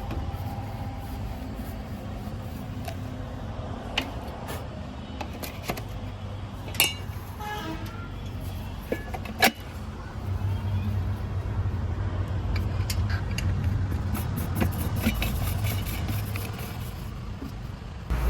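Diesel engine of a JCB 3DX backhoe loader running while it digs and loads mud, with a few sharp metallic clanks. The engine gets louder about ten seconds in as it works harder.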